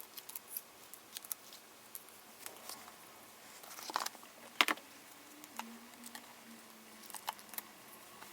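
Photo cards being laid out on a table by hand: light, scattered taps and clicks of card handling, with one sharper tap about halfway through.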